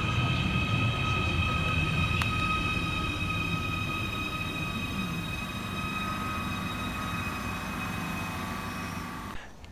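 Merseyrail Class 777 electric multiple unit running with a steady high electric whine over a low rumble, the whole sound fading away steadily. It cuts off abruptly near the end.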